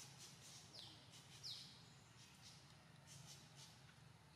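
Faint outdoor ambience with two short bird chirps, each falling in pitch, about a second in, over faint rapid high trills and a low steady hum.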